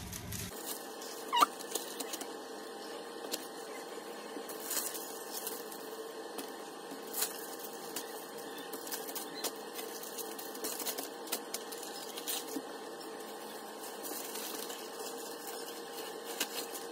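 Butter paper and a large plastic storage bag crinkling and rustling with light clicks as a stack of parathas is handled and bagged, over a steady low hum. A short rising squeak comes about a second and a half in.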